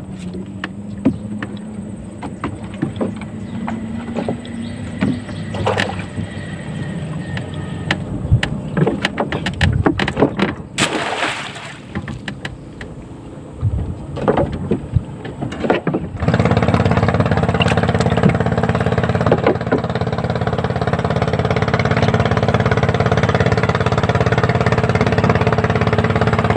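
Knocks and clattering of handling for the first part, then a small boat engine starting about two-thirds of the way through and running steadily.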